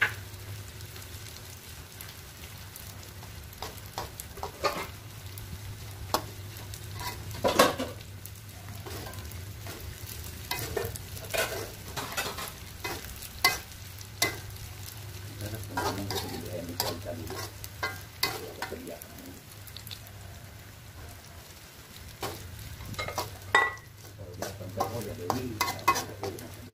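Small dried anchovies frying in hot oil in a metal wok, sizzling steadily, while a metal spatula stirs and tosses them, scraping and clicking against the pan at irregular moments.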